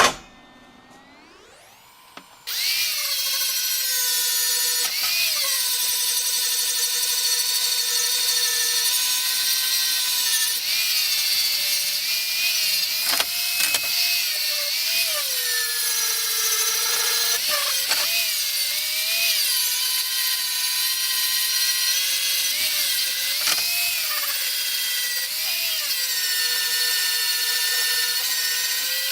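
Angle grinder spinning up with a rising whine, then grinding down the welds on a welded metal frame. The motor pitch sags each time the disc is pressed into the work and recovers when it eases off.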